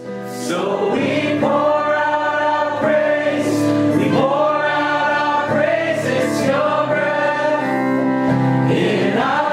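A group of people singing a slow worship song together, holding long notes.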